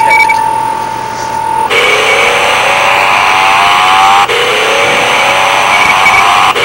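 A steady high beep-like tone that cuts off about a second and a half in. Then a whine over a hiss that climbs steadily in pitch for about two and a half seconds, drops back and climbs again, three times.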